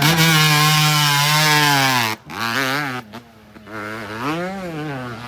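Small off-road vehicle engine at full throttle, a high buzzing note held steady for about two seconds. It then cuts off sharply and revs up and down twice as the throttle is worked.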